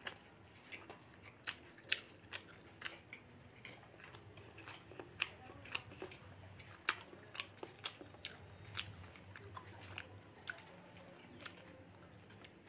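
A person chewing a mouthful of rice and fish, with irregular sharp mouth clicks and smacks, a few a second.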